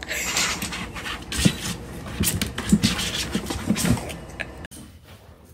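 Empty plastic jugs knocking, thudding and scraping as a kitten scrambles on and inside them, a string of irregular short hollow knocks that cuts off about three-quarters of the way through.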